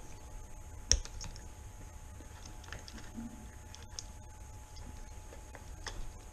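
Plastic wiring connectors being unplugged from an e-bike mid-drive's speed controller: scattered light clicks and handling noise, the sharpest click about a second in.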